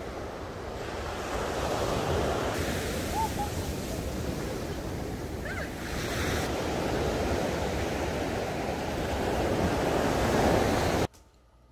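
Sea waves breaking and washing up on a sandy beach, a steady surf that swells and eases. It cuts off suddenly near the end.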